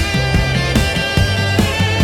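Instrumental psychedelic rock: sustained electric guitar notes over bass and a steady drum kit beat.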